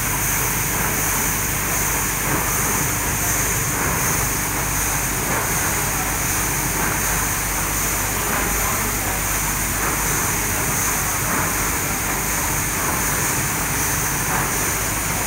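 Rice mill machinery, with a rice blender's rotating drum, running with a steady, unbroken mechanical noise.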